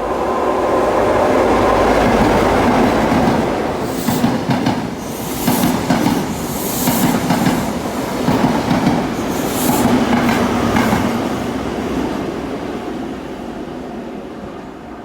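A train passing by. The sound builds over the first couple of seconds and clatters over the rails through the middle, with a run of sharp high-pitched clanks. It then fades away steadily toward the end.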